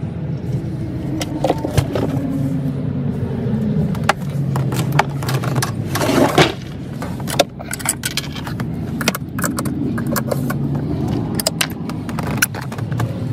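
A hard-sided cooler being handled: glass beer bottles and ice clinking and knocking inside, then the lid is shut and latched. Many small clicks and knocks, with a louder rattling scrape about six seconds in.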